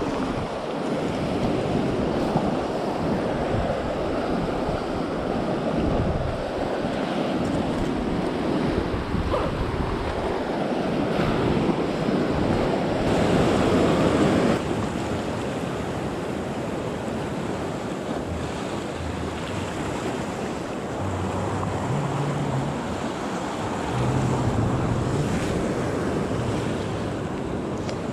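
Sea surf breaking and washing over shore rocks, with wind buffeting the microphone. The surf is loudest just before halfway, then drops suddenly to a steadier wash.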